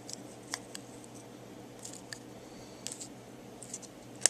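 Thin soda-can aluminium being bent and folded by hand into a padlock shim: scattered faint crinkles and ticks, with a sharper click near the end.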